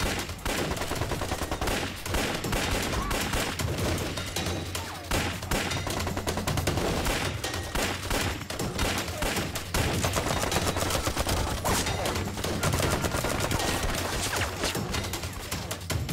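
Sustained small-arms battle gunfire: many guns firing at once, shots rapid and overlapping in a dense, unbroken volley.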